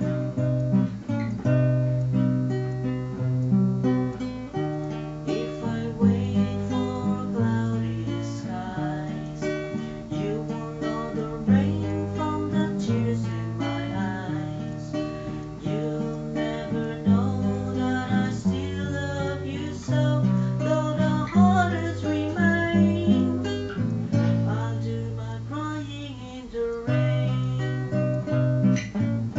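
Acoustic guitar played solo: chords strummed and picked over a bass line that changes every second or two.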